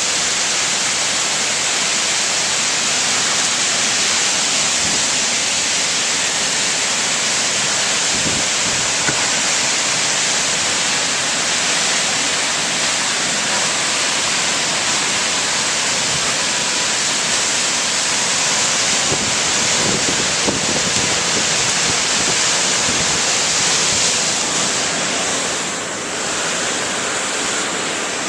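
Torrential rain and strong wind in a severe storm: a loud, steady rush of downpour, with low gusts swelling now and then.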